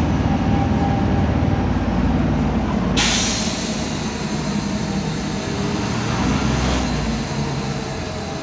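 Cabin noise of a CNG-powered MAN Lion's Classic city bus under way: a steady low drone from the drivetrain, with the rear differential's whine that the uploader calls noisy. About three seconds in, a hiss comes in suddenly and carries on.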